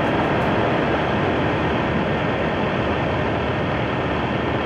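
A motorcycle riding along at a track speed limit of about 40 km/h: a steady rush of wind and road noise with no clear engine note.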